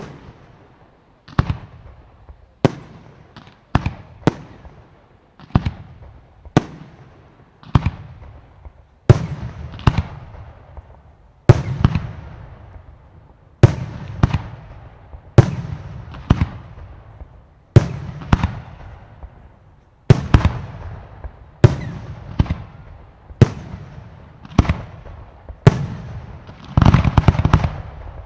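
Aerial firework shells firing and bursting, a sharp bang every second or two, each trailing off in echo. Near the end a quick dense run of crackling pops.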